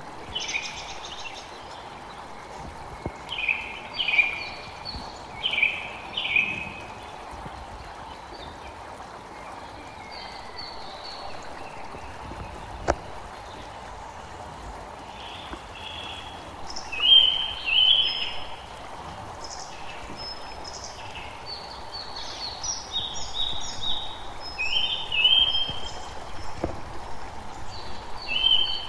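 Birds calling in short, repeated phrases, loudest in two bunches about halfway through and near the end, over a steady outdoor hiss.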